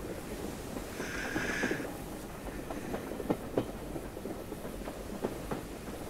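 Railway carriage running along the track, heard from inside: a low steady rumble with the clickety-clack of the wheels over rail joints, in pairs of clicks about every two seconds. A brief higher hiss comes about a second in.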